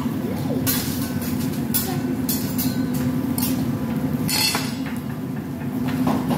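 Metal teppanyaki spatula and utensils clinking and scraping on the steel griddle, with several short sharp strikes over a steady low hum.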